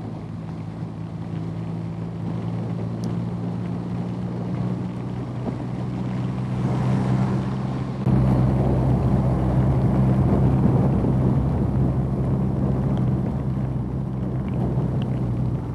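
BMW R nineT's air/oil-cooled boxer twin running steadily at highway speed, with wind and rain noise on the microphone. About eight seconds in the sound steps up suddenly, louder and with more low rumble, then holds steady.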